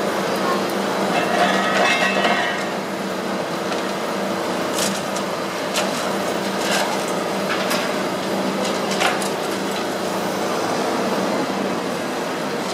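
Long-reach demolition excavator running steadily as it breaks up a concrete structure, with a handful of sharp knocks and clanks about midway.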